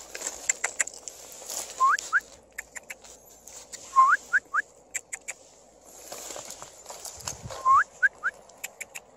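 A dog whines in short, rising squeaks, in groups of two or three, mixed with sharp clicks of stones knocking together.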